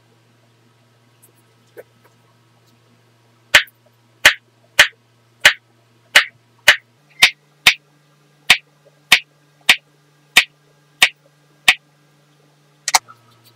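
A series of about fifteen sharp clicks, roughly one every half second, over a faint low hum.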